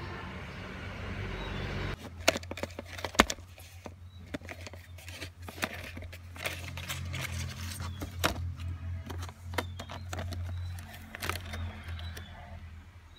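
Plastic packaging and a plastic LED dome lamp being handled: scattered clicks and crackles, the loudest about two and three seconds in, over a steady low hum.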